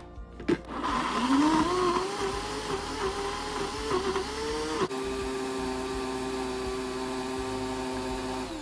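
Countertop blender motor starting up and puréeing dried chilies, lemongrass, galangal, onion, garlic and anchovies with water into tom yam paste. Its whine climbs in pitch as it gets up to speed and wavers while the blades chop the coarse ingredients. About halfway through it settles into a smooth, steady pitch as the mix becomes a fine paste.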